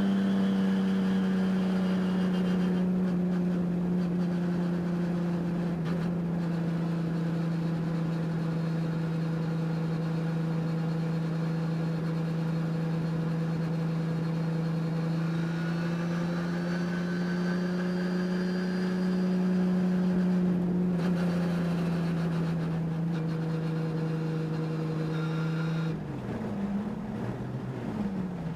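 Race engine running at high, nearly steady revs, its pitch drifting only slightly. About 26 seconds in the revs drop off and waver up and down as it gets quieter.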